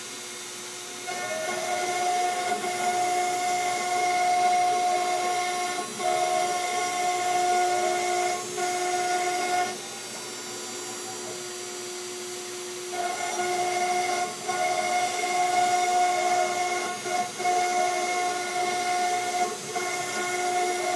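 CNC router's spindle whining steadily as the bit engraves into an MDF board, with the stepper motors whirring and changing pitch as the head moves. The cutting gets louder about a second in, drops back for a few seconds around the middle, then picks up again.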